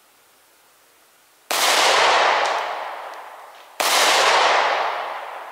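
Two pistol shots about two seconds apart, each sharp crack dying away slowly over about two seconds. They are aimed single shots in a three-round string at a 10-yard target.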